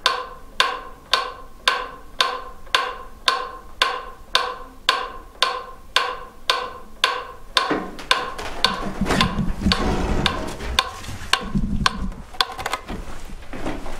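Evenly spaced sharp ticks, a little under two a second, each with a short ringing tone, from a small ticking device. From about eight seconds in, louder rumbling and rustling noise joins the ticks, which become less regular.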